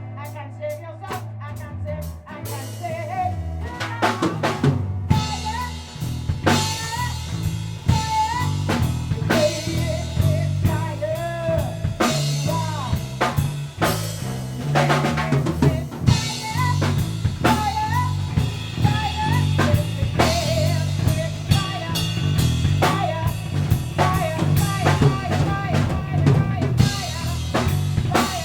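Live band playing: a drum kit with snare, rimshots and bass drum over a bass guitar line, with a lead melody of bending notes on top. The drums come in hard about four seconds in after a sparser opening.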